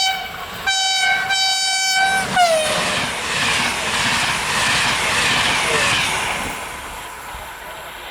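A train horn ends one blast, then sounds a second single-tone blast that drops in pitch as the train passes. The rushing rumble of the train running by on the rails follows, fading away over the last couple of seconds.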